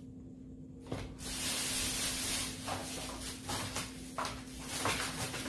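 A thin plastic bag rustling and crinkling as a hand rummages inside it, after a light knock about a second in.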